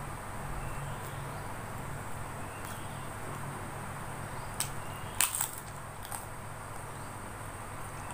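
Crisp cracker (peyek) being bitten and crunched close to the microphone: a few sharp crunches around the middle, the loudest cluster a little after five seconds in, over a steady low hum and hiss.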